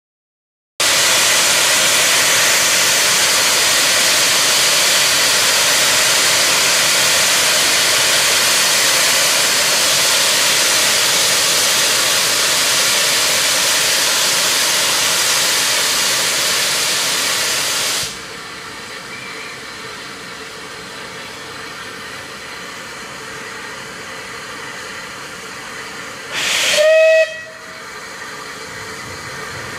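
Rebuilt Bulleid Battle of Britain class steam locomotive 34053 standing with steam blowing off hard at its safety valves: a loud steady hiss that cuts off abruptly about 18 seconds in, leaving a fainter hiss. About 26 seconds in its whistle gives one short blast, the signal before the train departs.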